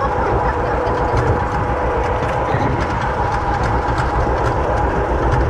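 Vintage John Deere tractor engine pulling a wagon, running steadily at a constant speed with a low, even chugging rhythm.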